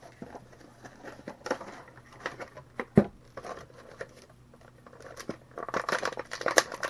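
A bobblehead's packaging being opened by hand: crinkling and rustling of plastic and card with scattered light clicks, a sharp knock about three seconds in, and a denser spell of rustling near the end.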